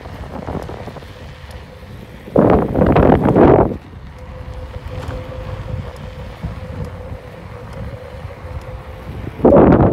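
Wind noise on the microphone over the low running rumble of a moving vehicle, with two loud rushes of wind, one about two seconds in lasting over a second and another near the end.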